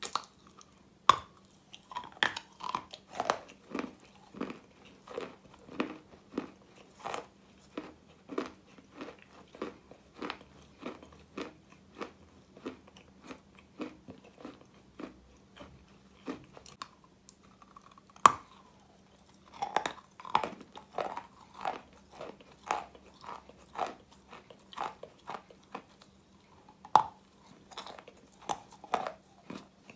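Pressed Russian chalk egg being bitten and chewed. There are three loud, sharp bite cracks: about a second in, a little past the middle, and near the end. Each is followed by a run of crisp crunching as the chalk is chewed.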